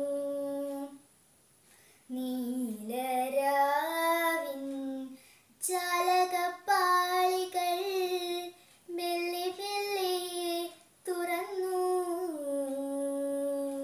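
A young girl singing a Malayalam light song (lalithaganam) unaccompanied, in long held, ornamented phrases with brief pauses for breath between them.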